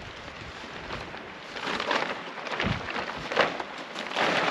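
Large plastic tarp rustling and crinkling as it is shaken and swung over to be folded, in a run of swishes that grow louder toward the end.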